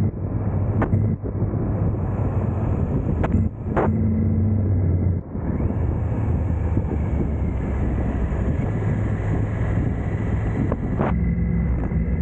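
Triumph Tiger 900 GT's three-cylinder engine running under way on the open road, with wind buffeting the microphone. The engine note dips briefly a few times in the first half and then runs steadily, with a few sharp clicks.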